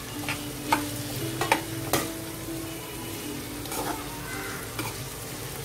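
Chopped vegetables sizzling in a frying pan as they are stir-fried with a spatula, with several sharp taps and scrapes of the spatula against the pan.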